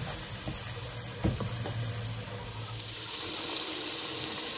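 Small potatoes sizzling steadily in oil in a frying pan, the water they were steamed in now boiled off, with a couple of light knocks from a wooden spoon stirring them in the first second or so.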